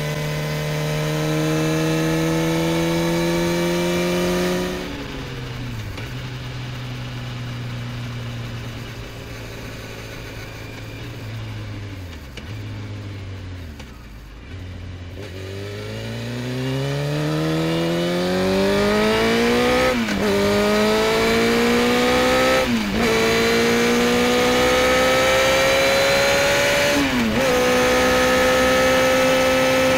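Motorcycle engine heard from the bike itself, revving up through a gear, then shutting off about five seconds in and slowing with the engine low and a few gear changes down. From about halfway it accelerates hard, rising in pitch with three upshifts, and settles into a steady cruise near the end.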